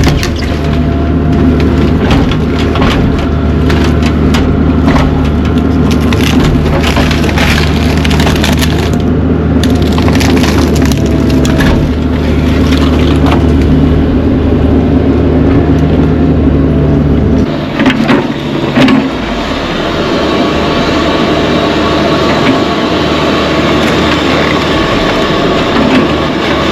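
Mini excavator's diesel engine running under load while wooden demolition debris is crushed and splintered, with many sharp cracks and snaps. About two-thirds of the way through, the engine's steady note drops away and the cracking thins out.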